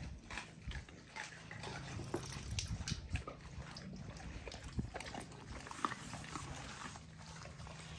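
Pitbulls chewing raw chicken leg quarters: wet chewing with irregular crunches and clicks as they bite through the meat and bone.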